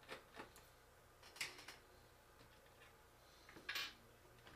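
Near silence broken by a few faint clicks and light knocks from a small screwdriver and laptop parts being handled, with a brief faint scrape near the end.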